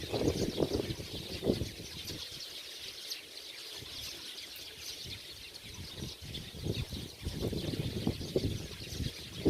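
A flock of many small birds chattering without pause, a dense mass of overlapping high chirps. Low rustling sounds come in the first two seconds and again in the last few seconds.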